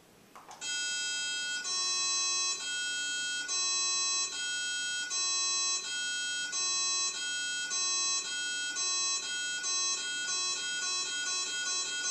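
Pacing tones of a VATplus vestibular autorotation test: electronic beeps alternating between two pitches that cue the head movements. They begin about half a second in, roughly one beep a second, and speed up steadily until they come several a second near the end.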